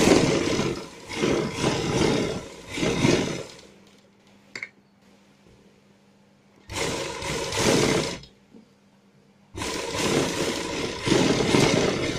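Sewing machine stitching a border onto a neckline in three runs, stopping and starting: a run of about three and a half seconds, a short one about seven seconds in, and a longer one from about nine and a half seconds. Between runs there is a faint steady hum and a single click.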